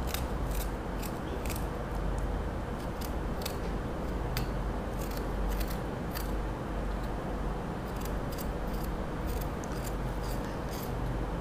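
Knife scraping the skin off a piece of fresh ginger in short, irregular strokes, over a steady low hum.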